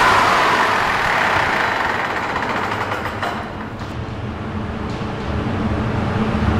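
Dyno diesel engine shutting down as the PowerHalt air intake shut-off valve closes and chokes off its air: the intake rush and engine note fade away over about three seconds. A few sharp clicks follow, and a low hum builds again near the end.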